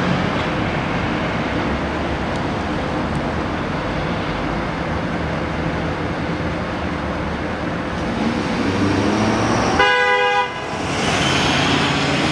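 Fire department ladder truck approaching on a call with steady engine and road noise. About ten seconds in it gives one short horn blast, then it passes close with a rush of engine noise.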